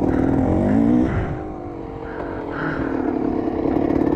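Dirt bike engine revving, its pitch rising for about a second, then dropping off as the throttle closes, and running steady again near the end.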